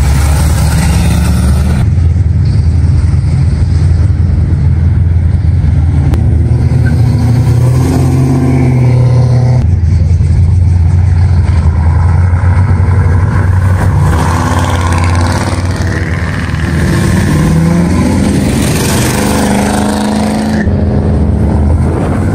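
A string of hot rods and muscle cars driving past one at a time: a vintage black hot rod sedan, a lowered red Chevrolet C10 pickup, then a red Pontiac GTO. Their engines rumble loudly through the exhausts, and one engine rises in pitch as it accelerates about three quarters of the way through.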